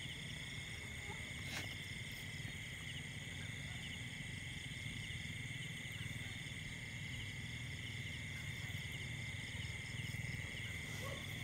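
Night chorus of insects: a steady high-pitched trill with small chirps repeating about twice a second, over a faint low hum.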